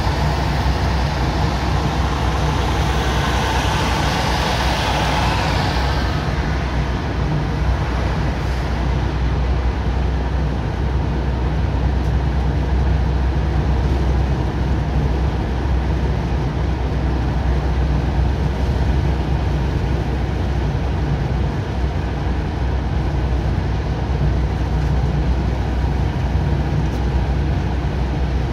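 Road noise inside a car's cabin at motorway speed: steady low engine and tyre rumble under a hiss of wind and road surface. A louder rushing hiss fades away about six seconds in.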